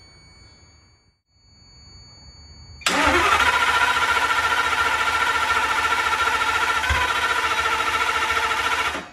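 Starter cranking the one-off 40-valve Ford V10 at a steady speed for about six seconds, starting suddenly about three seconds in and cutting off just before the end, without the engine catching.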